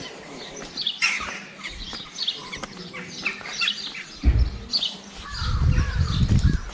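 Small songbirds chirping and singing, many short chirps and trills. From about four seconds in, an irregular low rumbling on the microphone comes in and becomes the loudest sound.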